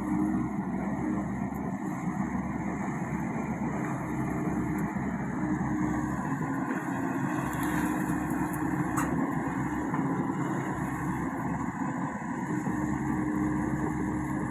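Komatsu PC55 mini excavator's diesel engine running steadily while it digs a ditch. A tone in its hum comes and goes as the machine works, and there is a single sharp tick near the end.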